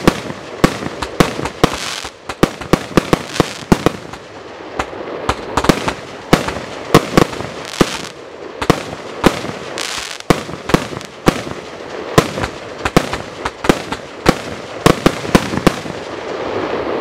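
Svea Fireworks Asgaard consumer fireworks cake (91 shots, 22 mm tubes) firing a rapid, uneven barrage of sharp shots, some close together in clusters. The shots stop shortly before the end.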